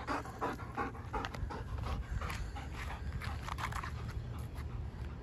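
Shepherd-type dog panting hard with its mouth open, quick breaths in and out at about three a second.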